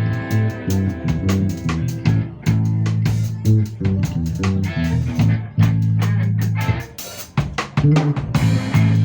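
A band playing an instrumental passage: drum kit with snare and bass drum keeping a steady beat under bass and guitar, with a brief break about seven seconds in before the band comes back in.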